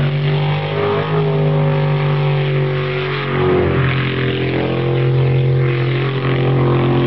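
Racing boat engine running hard at high revs: a steady drone whose pitch dips slightly about three seconds in.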